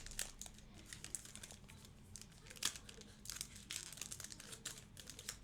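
Faint crinkling and rustling with light clicks as trading cards and their plastic are handled.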